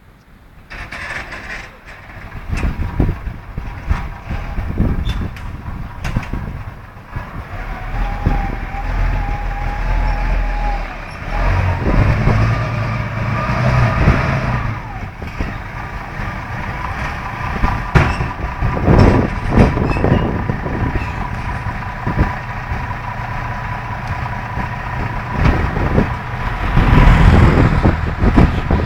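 Fire engines' diesel engines starting up and running in the fire station, with knocks of doors and equipment and a thin steady whine over the engine noise. Near the end the engines get louder as the trucks pull out, with a loud hiss of air from the brakes.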